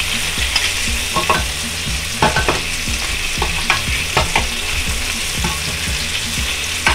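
Beef chuck short ribs sizzling in butter in a hot pan, a steady frying hiss. Tongs click and scrape against the pan and meat at scattered moments as the pieces are turned onto their sides.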